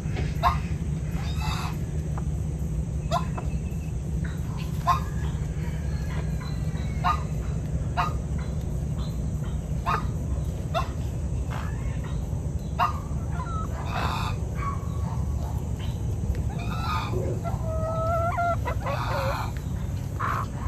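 Chickens clucking: short clucks about once a second, with a longer drawn-out call near the end, over a steady low hum.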